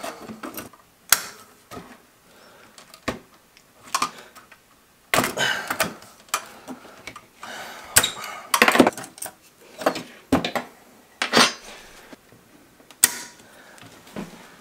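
Irregular clicks, knocks and short rattles of small plastic and metal parts being handled and moved while a Mk3 Supra cassette player is taken apart, with a few brief scraping stretches.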